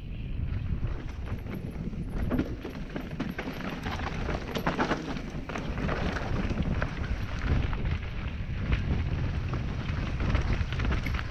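Mountain bike descending a rough dirt and gravel trail at speed: wind buffeting the microphone, tyres crunching over loose stones and the bike rattling over bumps, with many scattered sharp clacks.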